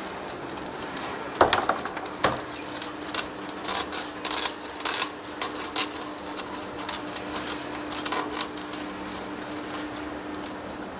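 Heavy face lathe running with a steady hum while machining a rotor shaft, with a run of irregular sharp metallic clinks and knocks that is loudest about a second and a half in and dies away a couple of seconds before the end.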